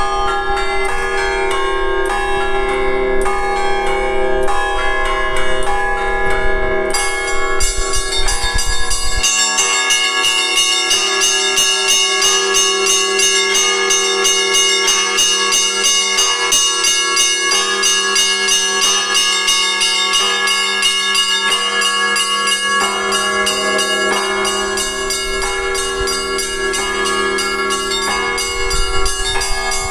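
Church bells ringing an Easter peal: deep bells sound steadily underneath while many smaller, higher bells join in with quick, overlapping strikes about seven seconds in.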